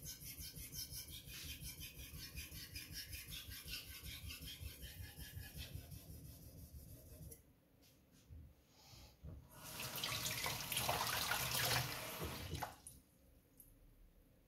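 Steel knife blade stroked back and forth on a fine #6000 waterstone, a quick even rhythm of scraping strokes for about seven seconds. After a short pause, water runs for about three seconds and is the loudest part, then stops.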